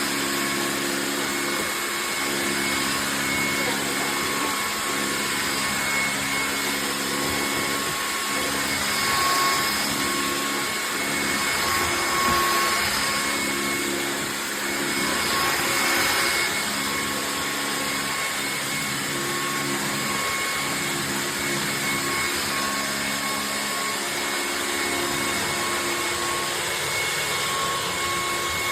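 Vacuum cleaner running steadily: rushing air over a high motor whine. It swells a little louder a few times in the middle.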